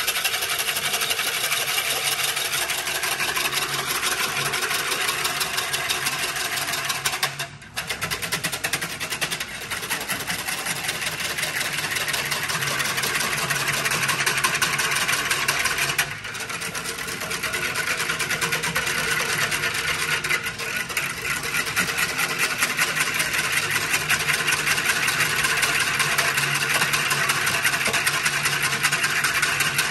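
Wire whisk beating sugar into water in a pitcher to dissolve it for simple syrup: a fast, steady rattle and scrape of the whisk's wires against the pitcher's sides. It breaks off twice, briefly, about a quarter of the way in and about halfway.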